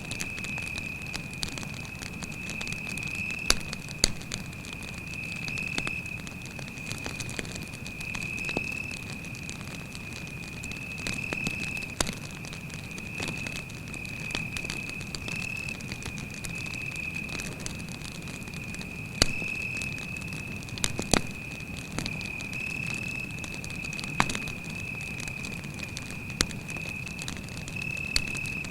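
Wood campfire crackling, with scattered sharp pops. A cricket trills steadily at a high pitch throughout.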